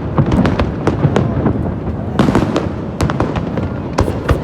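Fireworks display: rapid, overlapping bangs and crackles of bursting shells over a continuous low rumble.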